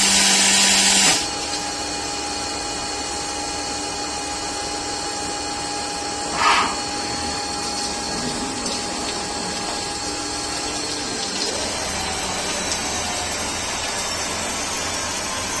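Newker Falcon CNC lathe running a turning cycle: spindle and drives whining steadily, with coolant pouring and splashing on the work. A loud hissing burst fills the first second, a shorter one comes about six seconds in, and near eleven seconds the steady whine stops and a low hum takes over.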